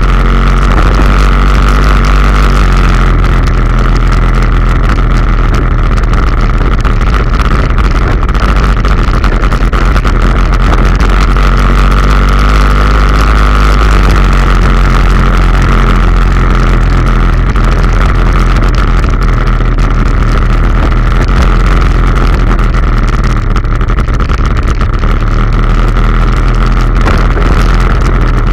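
Loncin X-Wolf 700's engine running steadily under way, its pitch shifting only slightly, with a steady high whine throughout.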